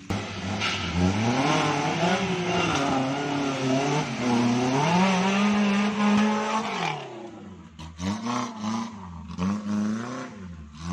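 Suzuki Jimny (LJ80) engine revving hard under load, its pitch climbing and falling for several seconds, then easing off into lower revs with a few short throttle blips near the end.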